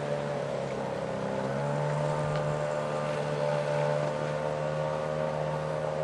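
Small outboard motor on a canoe running steadily, its revs picking up a little about a second and a half in and then holding.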